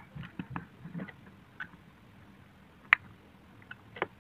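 Small plastic clicks and knocks as the housing of a disassembled portable speaker is handled, with one sharp click about three seconds in and another near the end.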